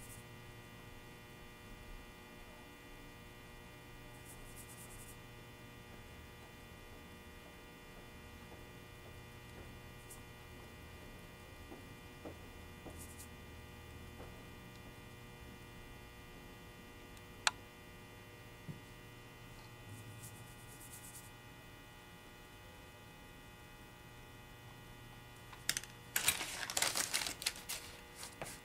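Steady electrical mains hum with a stack of buzzing overtones, with faint brushing now and then and a single sharp tick about two thirds of the way through. Near the end comes a burst of rustling and small clicks from paper and small pieces being handled on the table.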